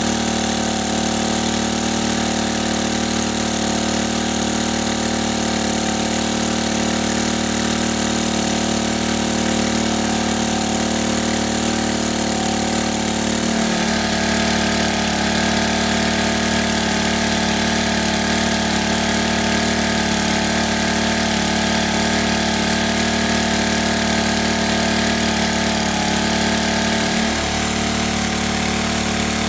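An engine running steadily at idle, its tone shifting slightly about halfway through and again near the end.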